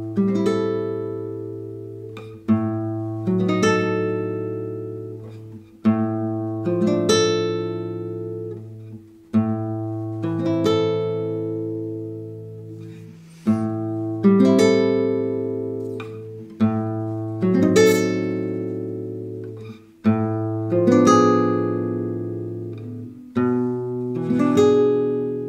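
Background music: slow acoustic guitar, a chord struck and left to ring and fade about every three seconds, over a held low note.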